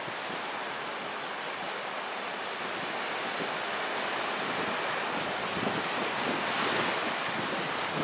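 Small waves washing steadily onto a sandy beach, a little louder about three-quarters of the way through, with wind buffeting the microphone.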